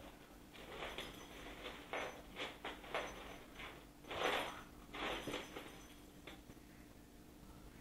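A kitten playing with a toy: irregular short scratchy rustles and pats, the loudest about four seconds in.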